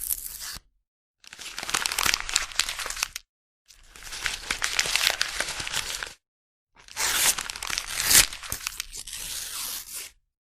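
Paper being torn and crumpled: a short crackle at the start, then three separate takes of about two to three seconds each, full of dense crackling, with silence between them.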